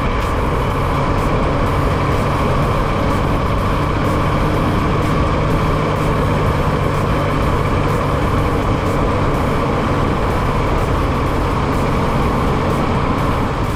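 Yamaha MT-09's three-cylinder engine running at a steady road speed, with even wind and road noise over it.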